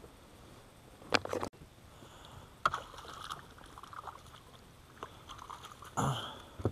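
Scattered knocks and clicks of tackle and gear being handled aboard a small fishing boat, with quiet between; the loudest come about a second in and near the end.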